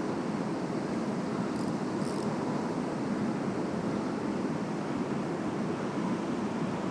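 Fast river water rushing, a steady, even wash.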